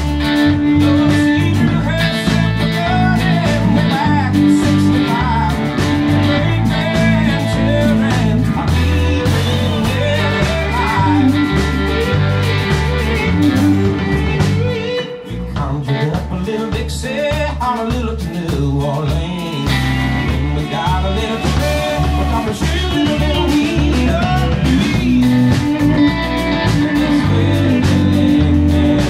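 Live blues-rock band playing: Stratocaster- and Telecaster-style electric guitars over a bass guitar line, with a steady beat and a short drop in level about halfway through.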